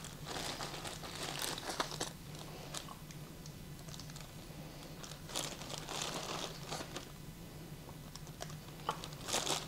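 Plastic zip-top bag crinkling and rustling as a hand digs through the chickpeas and cucumber pieces inside it. The rustles are faint and scattered, a little louder around the middle and near the end.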